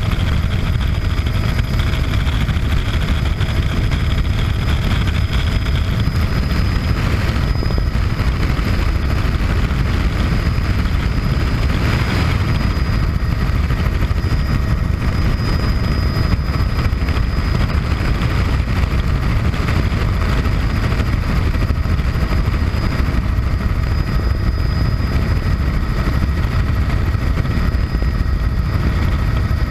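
Cabin noise of a 1980 Bell 206B3 JetRanger helicopter in level flight: a steady, loud low rumble from the rotor and Allison 250 turboshaft engine, with thin steady high whines above it.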